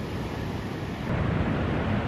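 Sea waves breaking and washing ashore, mixed with wind rumbling on the microphone; it gets louder about halfway through.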